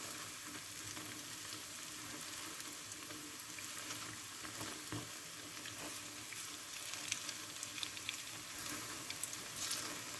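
Akara, bean-paste fritters, deep-frying in hot oil: a steady sizzle with scattered small pops and crackles.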